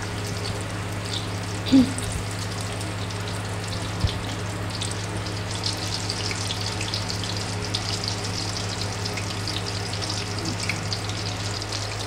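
Hot oil sizzling and crackling steadily as breaded macaroni chicken balls deep-fry in a pan, over a steady low hum. There is a short thump about two seconds in and a sharp click about four seconds in.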